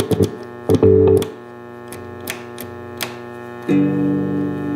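Electric guitar chords played through a Behringer GMX212 solid-state modeling amp over the amp's steady hum: a short chord about a second in, a few clicks, then a chord that rings on near the end. The signal comes and goes, which the owner puts down to dirty amp, mode and speaker selector switches.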